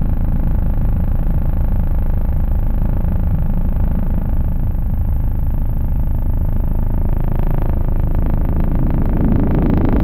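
Helicopter in flight, heard from inside the cabin: the steady, loud drone of the rotor and engine. From about seven seconds in, a rougher, fluttering edge comes into the sound.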